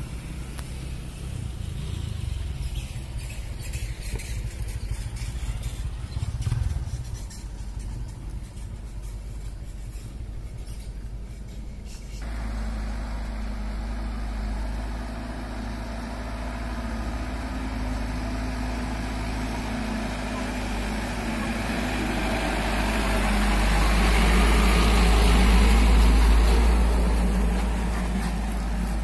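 A loaded truck's engine running as it approaches and passes close by, growing louder to a peak near the end. Before that, a low rumble of a car and a motorbike going by on the dirt road.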